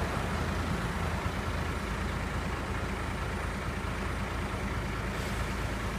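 Crane truck's diesel engine idling steadily, a low even drone.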